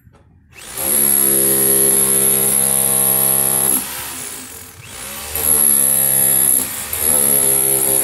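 Electric jackhammer (corded demolition hammer) chiselling at a car's window opening, running in bursts: a steady run of about three seconds starting a moment in, then after a pause two more runs with a brief break between them.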